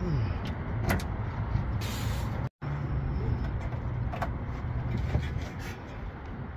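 Steady low rumble of a running vehicle engine, with scattered light metallic clicks and a short hiss about two seconds in. The sound drops out for an instant at an edit cut.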